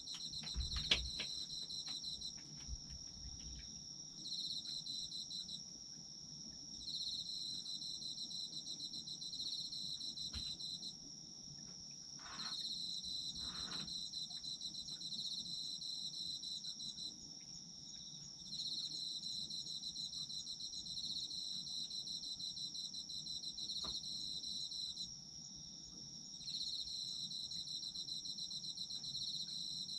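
Autumn crickets calling: one holds a steady high unbroken trill while another sings rapid pulsed trills in runs of a few seconds with short pauses. A faint knock is heard about a second in.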